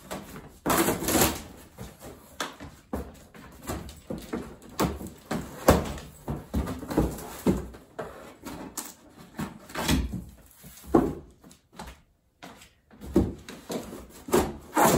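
A large cardboard shipping box being opened by hand: cardboard flaps scraping, bending and rustling, with irregular sharp knocks and a longer rustle about a second in.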